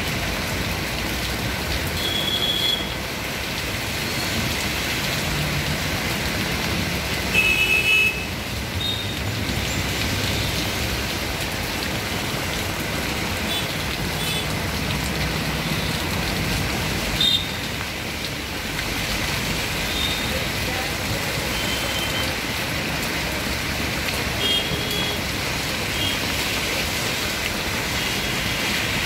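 Steady rain and road traffic on a flooded street, with cars and motorbikes wading through the water. Short vehicle-horn beeps cut through a few times, the loudest about seven and a half seconds in.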